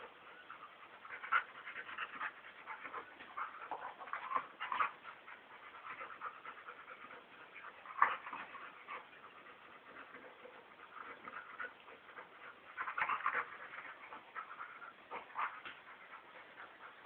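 Two dogs play-wrestling, making irregular short vocal sounds. The sharpest of these come about a second in, near five seconds, at eight seconds and in a cluster near thirteen seconds.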